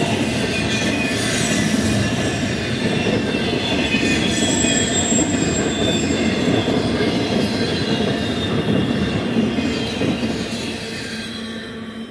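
Freight train's intermodal container well cars rolling past close by, wheels running on the rails with thin high squealing tones from the wheels. The sound fades in the last second or so as the end of the train goes by.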